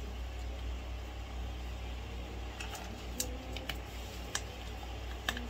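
A cat crunching dry kibble: a scatter of short sharp clicks over a steady low hum.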